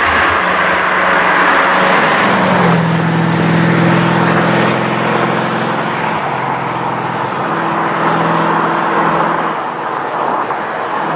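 The Bizzarrini 5300 Strada Competizione's 5.3-litre naturally aspirated Chevrolet V8 running at a steady engine speed, its note holding level with a few small shifts in pitch.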